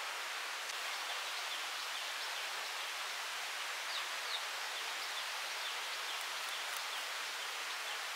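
Steady hiss of forest ambience with a few faint bird chirps about four seconds in.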